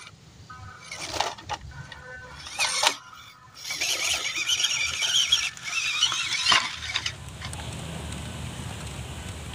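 Small electric RC crawler trucks climbing a dry dirt bank: brief motor and gear whine, and gritty scraping as the tyres claw at crumbling soil. About seven seconds in this gives way to a steady low rumble.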